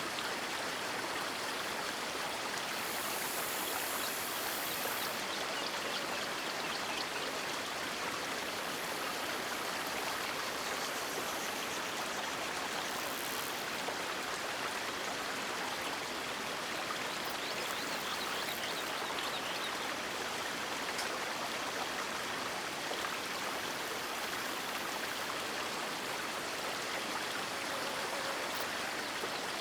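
River water flowing steadily in a continuous, even rush.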